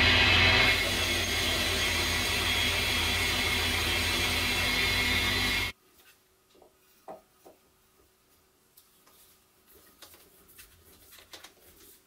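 Metal lathe running: the parting tool finishes its cut through an aluminium bar in the first second, then the lathe keeps turning freely. The machine noise stops abruptly about six seconds in, followed by faint metallic clicks and handling as a die holder is fitted against the part in the chuck.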